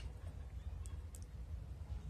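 Two faint, short clicks over a low, steady rumble.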